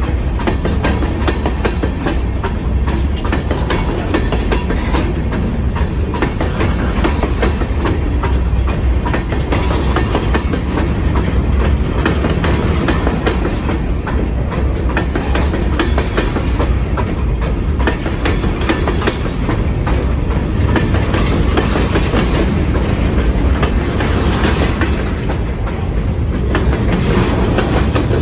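Freight train cars rolling past at close range: a steady, loud rumble of steel wheels on rail, with a continuous stream of clicks and clacks from the wheels.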